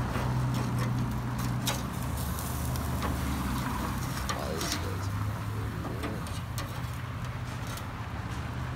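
Steady low hum with scattered crackles and a light hiss, as steak cooks on a grill over glowing coals.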